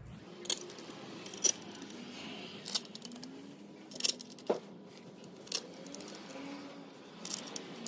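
Scattered light metallic clicks and taps of loose bolts being handled and started by hand into the cast intake plenum of a VQ35DE engine, over a faint steady background.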